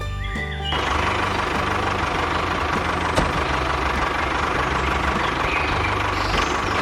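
A small engine starts running about a second in and keeps running steadily, a mini tractor engine sound.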